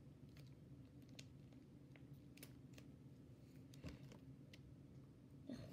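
Near silence: room tone with a low steady hum and faint scattered clicks, with a soft knock just before 4 s and another near the end.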